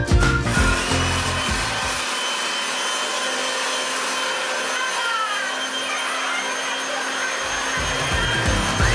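Handheld electric blower running steadily, a constant rush of air stirring foil shreds. Party music's beat sounds under it for the first couple of seconds, drops out, and comes back near the end.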